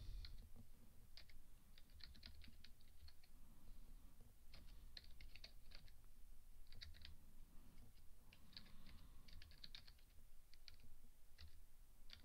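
Computer keyboard typing, faint, in short runs of keystrokes with brief pauses between.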